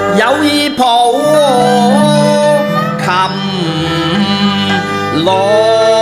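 Cantonese opera (yuequ) song: a melody that slides and bends in pitch over ensemble accompaniment, in phrases of about two seconds.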